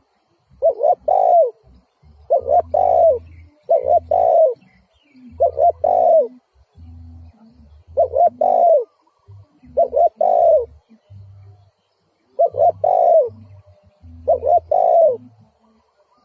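Decoy spotted dove cooing: a short phrase of three or four notes, repeated eight times about every one and a half to two seconds.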